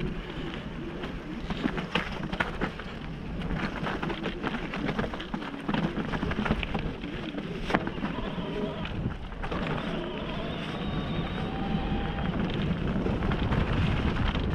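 Mountain bike riding down a rocky, then dirt, singletrack: tyres rolling over rock and gravel, with frequent clicks and knocks from the bike rattling. Wind noise on the helmet-mounted action camera's microphone.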